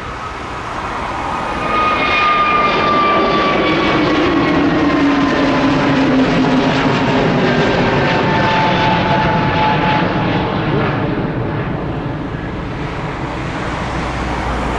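Airbus A320neo jet airliner's two turbofan engines at takeoff thrust as it lifts off and climbs away: a loud rumble with whining tones that slowly fall in pitch as it passes. It grows louder about two seconds in and eases off a little near the end.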